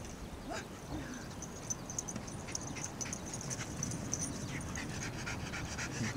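Shiba Inu panting quickly, with a few short whimpers.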